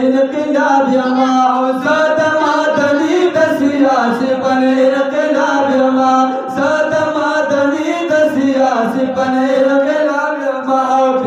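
Two men singing a Pashto naat together in long, held melodic lines.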